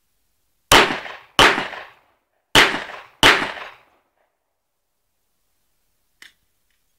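Glock 17 9mm pistol fired four times as two quick pairs of shots, each shot ringing out briefly; a faint click follows a few seconds later.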